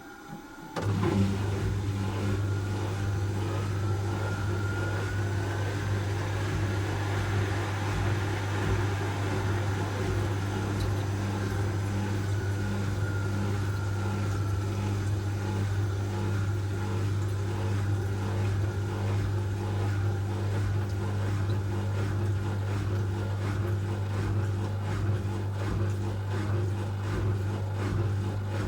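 Asko Quattro W6098X washing machine in its final spin, limited to 1600 rpm: the drum spins at high speed with a loud, steady hum and a faint whine that rises and falls. The sound comes in abruptly about a second in.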